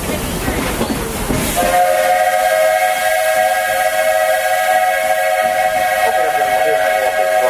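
Walt Disney World Railroad steam locomotive's whistle blowing one long steady chord of several notes. It starts about a second and a half in and holds for about six seconds. Before it comes the rumbling running noise of the moving train.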